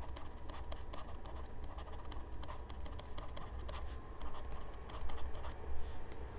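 A stylus scratching and tapping on a tablet's writing surface as words are handwritten: a run of light, quick, irregular clicks over a low steady hum.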